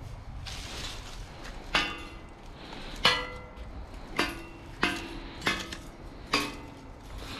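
Six sharp strikes at uneven intervals, each ringing briefly with a hard, metallic tone, like hammer blows on metal.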